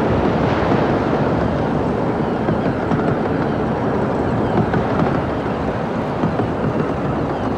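Carriages of a one-third-scale, 15-inch-gauge miniature railway train rolling past, a steady rumble of wheels on the track.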